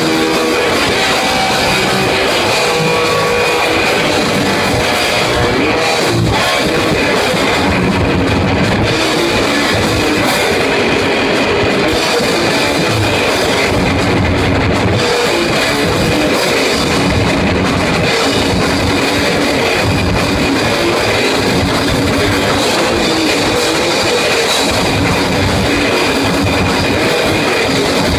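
Loud heavy rock music with electric guitar and a drum kit, playing steadily.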